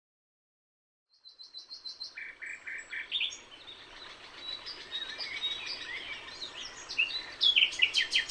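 Several songbirds singing and chirping together, starting about a second in. First comes a quick run of high repeated notes, then overlapping calls and trills.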